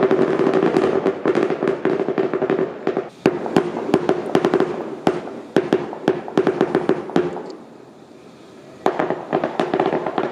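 Fireworks going off: a rapid run of bangs and crackling that stops for about a second roughly three-quarters of the way through, then picks up again.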